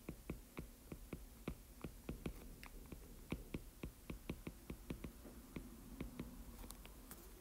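Stylus tip tapping and dragging on a tablet's glass screen while hand-lettering words: a faint, irregular run of light clicks, about four or five a second, thinning out near the end.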